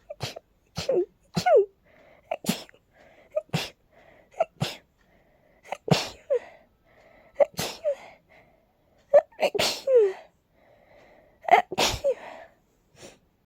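A person sneezing over and over in a rapid allergy sneezing fit, about a dozen sharp sneezes in quick succession, some ending in a short falling voiced sound, with soft voiced breaths between them.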